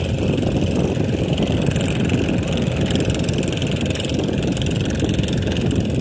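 A steady low engine rumble with no break, a fainter hiss above it.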